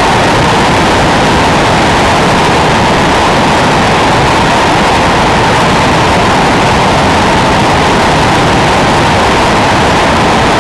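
Steady, loud wind rush buffeting a bike-mounted camera's microphone as a road bike descends at speed.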